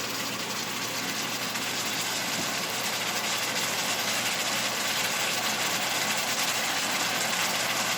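Chicken pieces frying in hot oil with sliced ginger in a pan, a steady sizzle.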